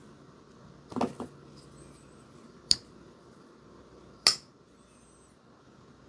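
Clicks from a slip-joint pocket knife being handled: a short cluster of soft clicks about a second in, then two sharp snaps about a second and a half apart.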